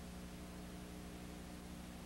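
Steady background hiss with a low electrical hum and no events; no sound from the filmed scene.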